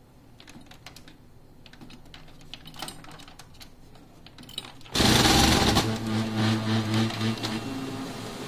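Faint clicks of control-panel keys being pressed. About five seconds in, an HP LaserJet Pro M501 laser printer's engine starts with a sudden loud rush and runs on with a steady motor hum as it feeds and prints a demo page. The noise is put down to a fuser that was not seated properly.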